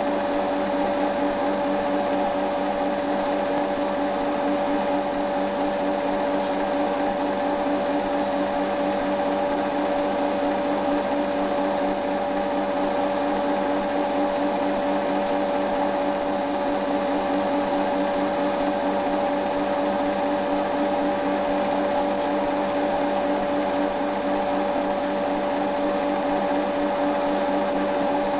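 8mm cine projector running: a steady, fast mechanical whirr with a constant hum-like tone, unchanged throughout.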